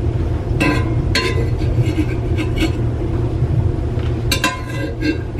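A spoon scraping food from a cast-iron skillet and clinking against the skillet and the steel Instant Pot, with several sharp, ringing clinks, over a steady low hum.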